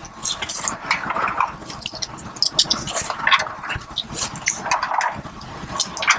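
Small metal hardware clinking and rattling as flange bolts and cup washers are picked up and fitted by hand, with scattered clicks, short metallic pings and rustling.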